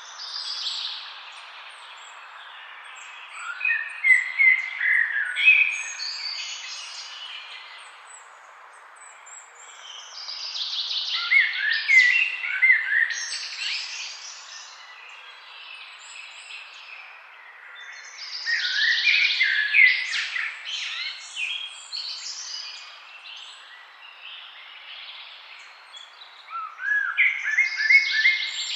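A songbird singing outdoors in bursts of quick chirping, sliding notes, a phrase of a few seconds repeated four times about every seven to eight seconds, over a steady background hiss.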